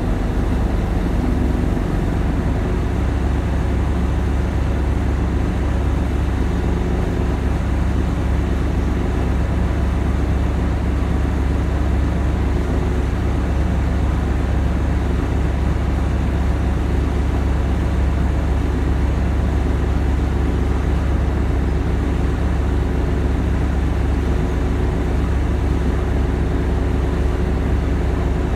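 City bus engine idling steadily, heard from inside the bus while it stands still, a deep even hum.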